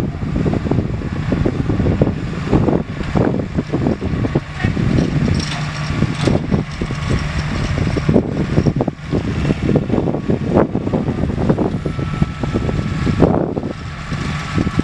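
Case IH tractor running as it pulls a Claydon Hybrid seed drill through cultivated soil; a loud, uneven rumble with many short surges.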